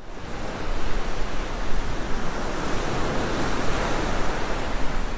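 Ocean surf rushing steadily, swelling in over the first second.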